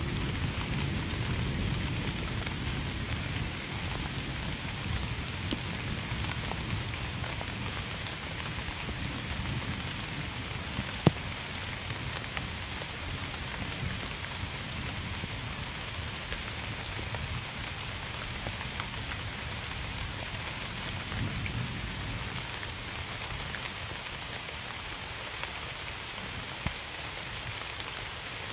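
Steady rain falling on a surface, with scattered sharp drop taps, one louder about eleven seconds in. A low rumble underneath fades over the first few seconds.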